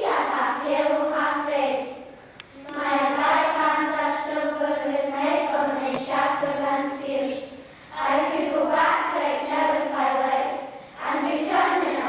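A choir of schoolgirls singing together, in phrases a few seconds long with short pauses between them.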